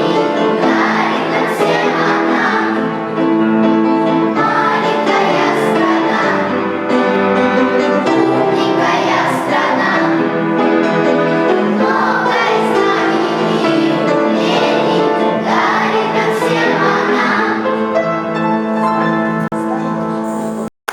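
A song sung by a group of children's voices over instrumental backing, in long sung phrases; the music cuts off abruptly at the very end.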